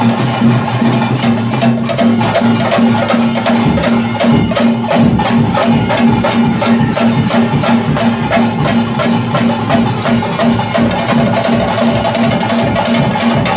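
Music with fast, even percussion beats over a steady sustained drone.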